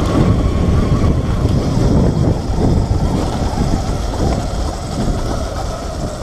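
Loud wind rushing and buffeting on an action camera's microphone as a Sur-Ron Light Bee X electric dirt bike is ridden fast down a rough dirt trail, easing slightly towards the end.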